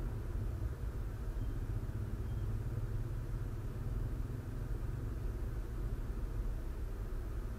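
Steady low engine rumble of a car idling while stopped in traffic, heard through the car's cabin.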